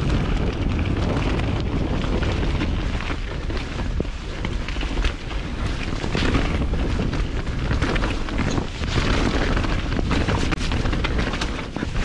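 Mountain bike descending a wet dirt singletrack at speed: wind buffeting the microphone in a steady low rumble, with tyre noise over dirt and roots and frequent short rattles and knocks from the bike.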